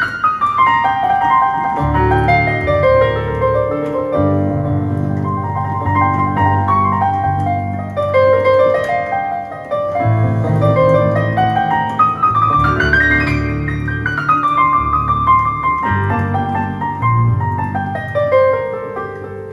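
Piano music: flowing runs of notes that sweep down and back up over held bass notes, fading out near the end.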